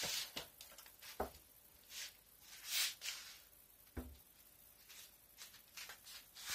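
Scattered light knocks and short rustles of handling as a plastic bottle of cooking oil is set down inside a low kitchen cupboard; the firmest knock, with a dull thud, comes about four seconds in.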